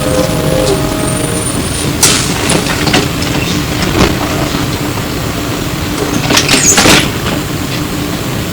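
Interior of a Flyer E902 electric trolleybus: a steady hum and drone with scattered clicks and rattles, and a short loud burst of hiss and clatter about six and a half seconds in.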